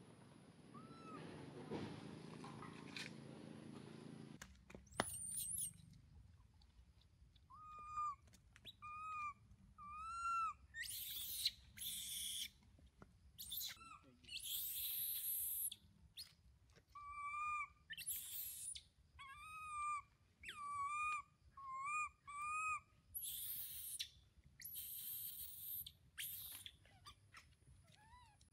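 Baby long-tailed macaque crying: a string of short, high coo calls, each rising and falling in pitch, mixed with harsh, noisy screams. These are infant distress calls, the sound of a baby that is separated from its mother or wanting to nurse.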